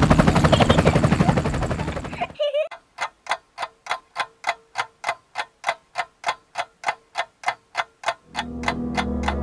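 Sound effects over title cards: about two seconds of fast, dense rattling, then an even, clock-like ticking at about three and a half ticks a second. Guitar music comes in near the end.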